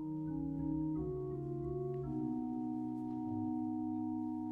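Background music: slow, sustained instrumental chords changing every second or so, the introduction to a sung Italian hymn.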